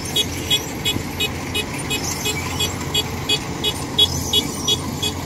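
Rice combine harvester's diesel engine running steadily as it works the field. Over it runs an even, high ticking about four times a second.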